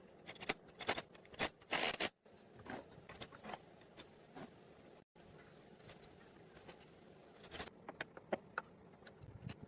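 Irregular clicks, taps and short scrapes of objects being handled, busiest in the first two seconds and again near the end; the sound breaks off abruptly twice.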